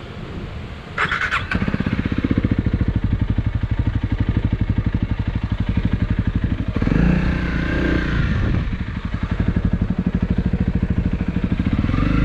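Single-cylinder four-stroke motorcycle engine, started about a second in with a short rattle. It then idles with a fast, even pulse and is revved twice, once in the middle and once near the end.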